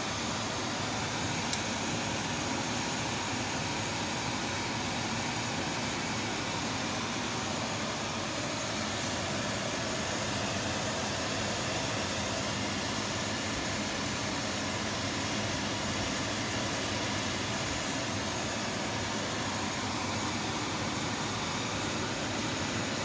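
Steady, even fan-like hiss throughout, with a single short click about a second and a half in.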